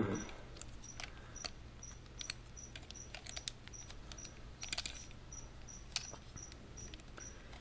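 Plastic parts of a Transformers Generations Springer action figure being worked by hand: scattered faint clicks and ticks as a stiff side panel is pried at. A faint high chirp repeats steadily about three times a second behind it.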